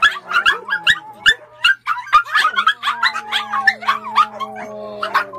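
A pack of Pomeranians yipping and barking rapidly over one another, several high-pitched yips a second. From about halfway a long drawn-out note is held under the yips.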